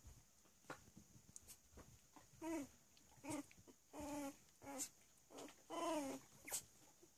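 Three-week-old Cavalier King Charles Spaniel puppies whimpering and squeaking as they play: a string of about six short whines, several falling in pitch, two of them drawn out in the second half. Faint clicks come in between.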